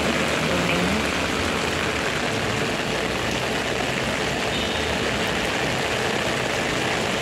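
Heavy rain falling steadily on a wet street, with the engine of a large coach idling close by.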